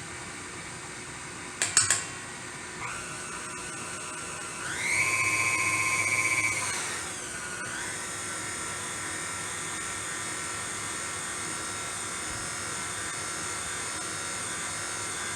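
KitchenAid stand mixer running on a low speed, mixing dry cake ingredients: after a couple of clicks the motor whine starts, swells louder and higher for about two seconds, then drops back to a steady low whine.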